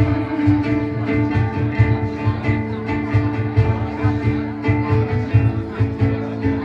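Instrumental music between sung lines: guitar with held notes over a steady pulsing beat.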